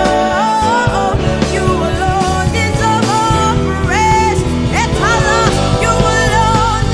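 Slow worship music: held bass and chords under a wavering lead melody that slides up and down between notes, with no words.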